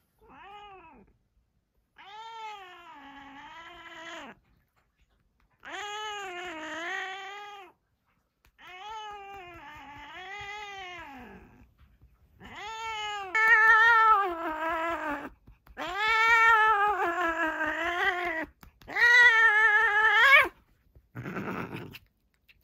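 Orange-and-white domestic cat yowling in about eight long, drawn-out calls, each rising and falling in pitch, getting louder in the second half, as it is patted on the rump.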